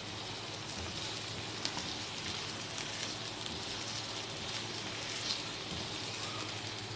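Diced carrot and green capsicum sizzling steadily as they fry in oil in a nonstick frying pan, with a couple of light clicks from the plastic spatula stirring them.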